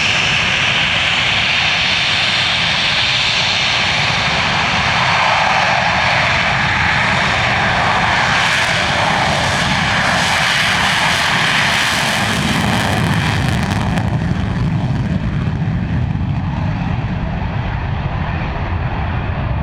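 Fixed-wing aircraft engine noise, a loud steady rush with a high whine, as an aircraft flies past; the sharper top of the sound dies away over the last few seconds as it moves off.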